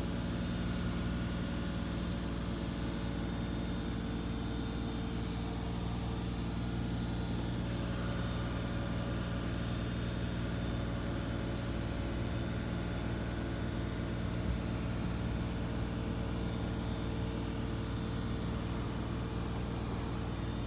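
Steady low hum of a vehicle engine idling, unchanging throughout, with a couple of faint brief ticks.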